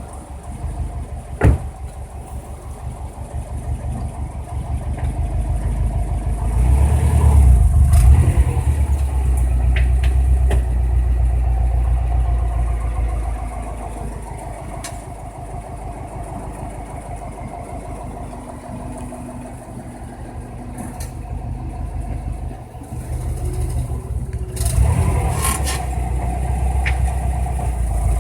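Subaru WRX turbocharged flat-four engine running as the car pulls away and then eases off, with several sharp pops from the front end. This is the new popping or creaking that showed up after a turbo replacement, heard when the car's weight shifts front to back.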